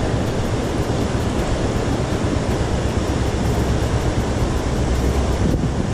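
Fast river water rushing and churning past in a steady noise, with a strong low rumble. It is water pouring through a broken sluice shutter of the barrage under the bridge.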